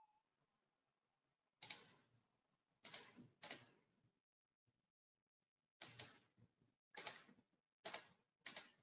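Faint computer keys being pressed: a scattered series of sharp clicks, several coming in quick pairs.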